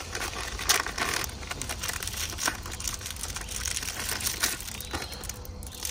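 Packaging of a fire starter crinkling and tearing as it is unwrapped by hand, in a string of irregular crackles.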